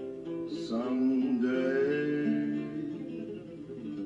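Acoustic guitar playing a slow song while a man sings long, held notes.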